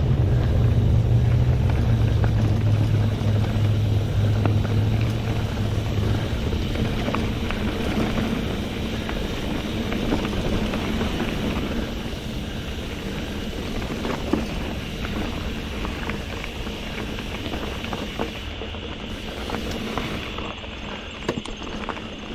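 Mountain bike ridden along a dirt trail: tyres rolling over the ground with small clicks and rattles from the bike, and wind buffeting the camera's microphone, the wind rumble heaviest for the first six seconds or so.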